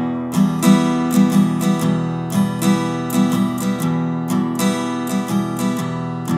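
Background music: acoustic guitar strummed in a steady rhythm, the instrumental intro of a song before the vocals come in.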